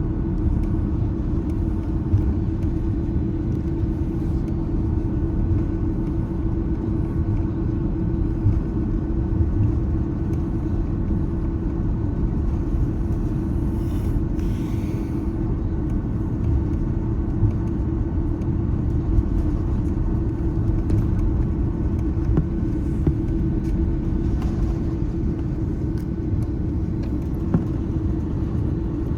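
Steady cabin noise inside an Airbus A330-300 airliner in flight: an even engine-and-airflow rumble with a constant low drone, and a brief hiss about fourteen seconds in.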